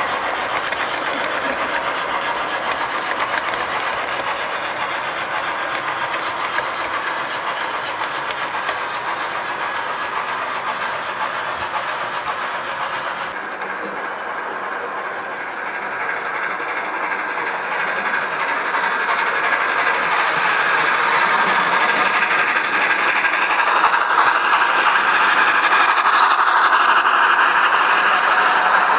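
HO scale model passenger train running on the track: a steady rolling noise from the cars on the rails. It dips briefly about halfway through, then grows louder over the last ten seconds or so as the train comes by close.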